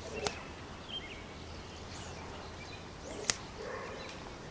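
Fly line cracking like a whip on the cast, twice, the second crack about three seconds later and much the louder. The crack comes from starting the forward cast before the back cast has straightened, which the instructor hears as backlash.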